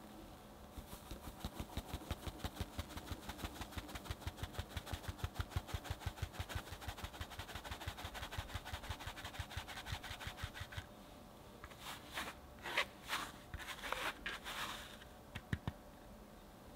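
Fine-mesh metal sieve being shaken and tapped over a bowl to sift cake flour, a quick, even tapping at about five taps a second for roughly ten seconds. Then a few louder, separate taps and knocks as the last flour is knocked through.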